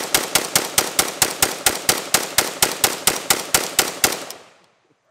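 DPMS Panther Arms Anvil AK-47 rifle in 7.62×39 being fired rapidly, an even string of shots at about five a second that stops about four seconds in.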